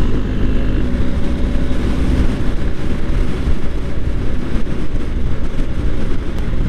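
BMW R1250 GS boxer-twin engine running steadily at road speed through an Akrapovič exhaust, mixed with wind rush on the bike-mounted microphone.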